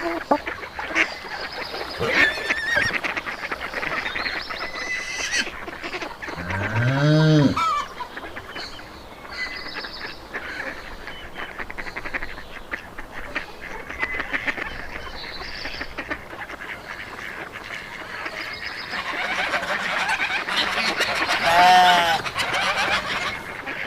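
Farmyard fowl calling, with geese honking over other birds. About 7 seconds in comes one longer, lower call that rises and falls, and a cluster of louder honks near the end.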